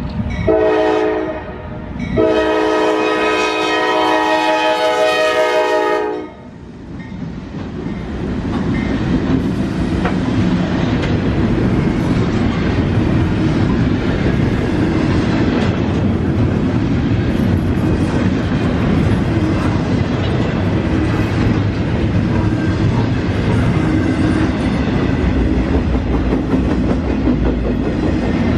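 A Norfolk Southern locomotive's multi-chime air horn sounds a short blast, a longer one, then a long blast that stops about six seconds in. The train then keeps passing with a steady rumble and clickety-clack of wheels on rail joints.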